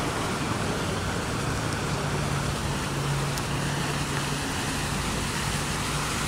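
Steady rush-hour road traffic, with engines humming low, mixed with the even splash of a park fountain's water jets.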